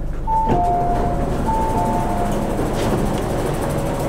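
Two-tone electronic chime inside an MTR CNR Changchun C-train carriage, a high note then a lower one, sounding twice over the train's steady low hum. A short knock comes just after the first note.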